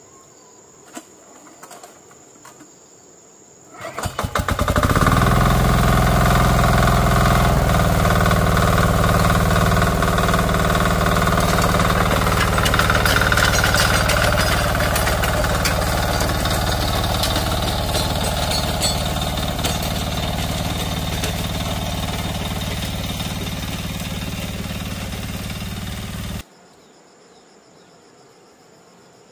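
Small farm engine, such as a hand tractor's, catching after a few quick sputters about four seconds in. It then runs loudly and steadily, easing off slightly, and cuts off suddenly near the end.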